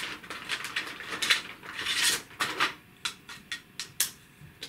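Plastic bag crinkling as plastic number rod track sections are slid out, then about four sharp plastic clicks close together as the decade sections are snapped together into one track.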